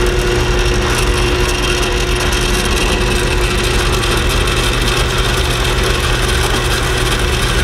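Drill press running steadily, its twist bit being fed down into a hardened-steel lawn mower blade to start a hole.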